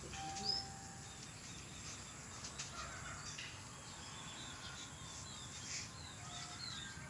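Small birds chirping and calling over a steady outdoor background hiss, with a short whistled note early on and a couple of faint knocks.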